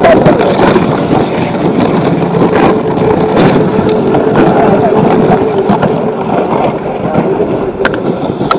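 Wind buffeting the camera microphone, a dense rumbling hiss, with scattered crunches of gumboots on the frozen river's snow and ice.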